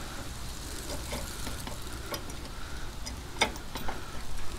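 A few light metallic clicks as a washer and the wheel hub are worked onto a mini bike's axle by hand, the clearest about three and a half seconds in, over a low steady rumble.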